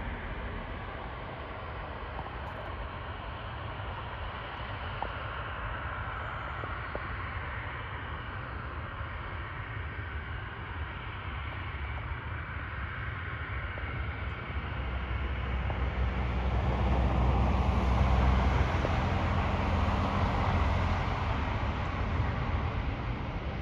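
Aircraft engine noise at an airfield: a steady low rumble and hiss that swells to a peak about three-quarters of the way through, then eases off.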